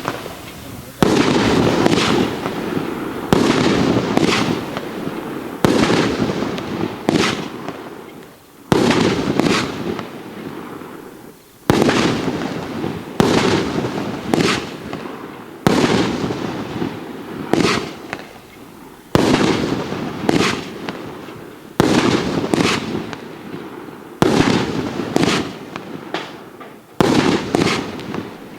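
A 20-shot, 36 mm consumer fireworks cake firing shot after shot, about one every second or so. Each shot starts sharply and fades out over a second, with crackling.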